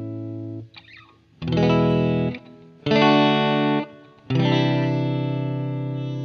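Background music on guitar with effects: a ringing chord dies away, two short chords are struck, then a long chord is left ringing.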